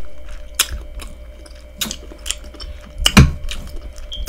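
Chewing of a mouthful of corn on the cob, with a few sharp, wet mouth clicks, the loudest cluster about three seconds in.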